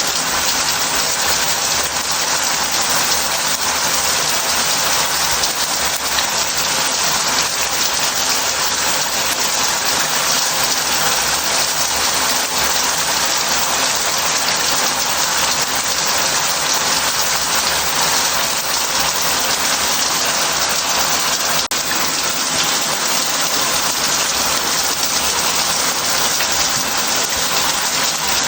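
Shower head spraying water steadily into a bath, an even hiss of falling water that doesn't change.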